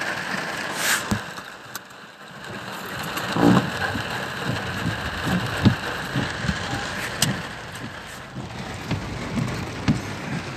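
Torrential rain drumming on a car's roof and windows, heard from inside the cabin. Heavy drops land as irregular thuds among a steady hiss.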